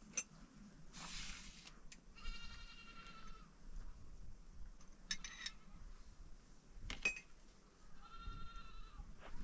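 Livestock bleating: two drawn-out, high bleats of about a second each, several seconds apart. Between them come a short hiss and a few sharp clicks.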